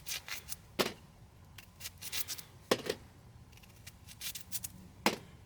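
Knife slicing a raw potato: a run of irregular crisp cuts and clicks, three of them sharper than the rest.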